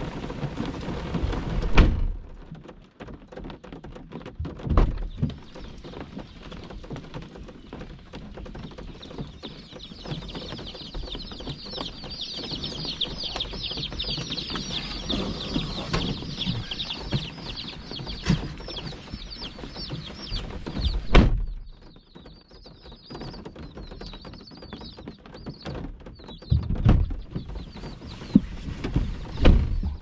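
A box of dozens of baby meat chicks peeping, a dense chorus of high, rapid chirps that is loudest from about ten to twenty seconds in and thinner afterwards. A loud thump about twenty-one seconds in, heard from inside a minivan.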